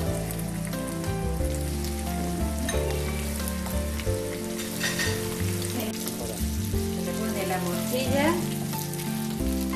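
Onion and cubes of cooked blood frying in olive oil in a pan, a steady sizzle, with a wooden spoon stirring and scraping the pan near the end. Background music plays underneath.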